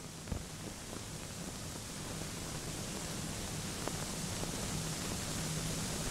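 Hiss and low hum of an old optical film soundtrack, with a few faint clicks and crackles, slowly growing louder.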